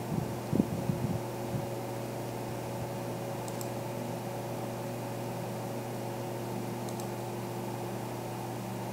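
Steady electrical hum and fan-like hiss of a computer room. There are a couple of soft low thumps in the first second and a half, and two faint mouse clicks about three and a half and seven seconds in.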